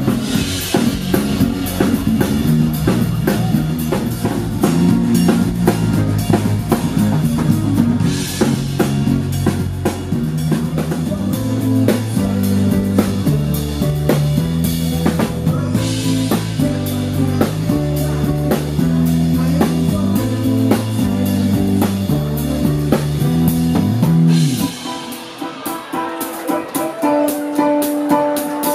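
Band music with a drum kit, a moving bass line and guitar. Cymbal crashes come about every eight seconds. Near the end the bass and drums drop out, leaving a quieter passage of higher held notes.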